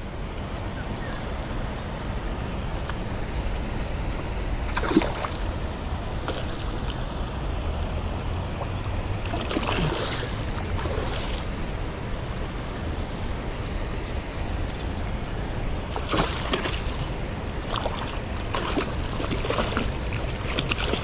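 Steady low rumbling outdoor noise, with a handful of brief sharp clicks spread through it.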